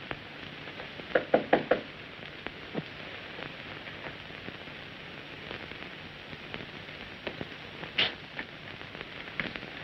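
Steady hiss and crackle of an old 1930s film soundtrack, with a quick run of four or five taps a little over a second in and a single sharp click near the end.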